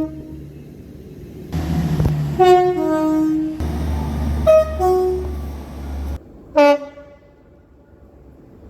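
Train's two-tone horn sounding three blasts about two seconds apart, the first two stepping from a higher note to a lower one and the last one short. Underneath is a low rumble from the train that cuts off suddenly about six seconds in.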